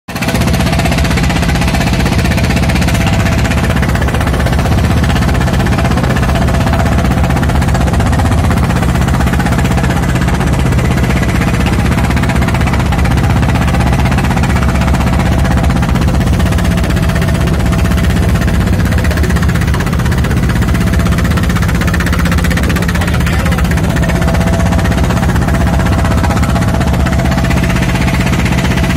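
Fishing boat's engine running steadily and loudly, with a fast, even beat.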